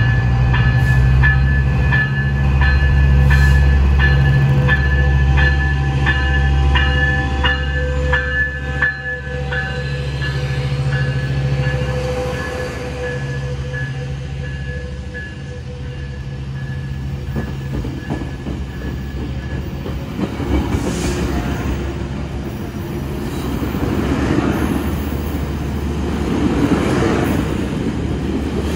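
Metrolink diesel-electric locomotive running, with its bell ringing about twice a second for the first half, and a rising whine as the train pulls away. Later the bilevel passenger cars roll past with a rumbling wheel-on-rail noise.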